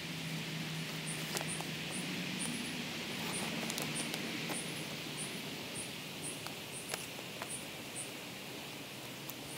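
Woodland ambience: a steady hiss with a short, high chirp repeated about twice a second, and a few faint clicks and rustles as cord is knotted onto the wooden ridge pole of a foil emergency-blanket shelter. A faint low hum fades out about halfway through.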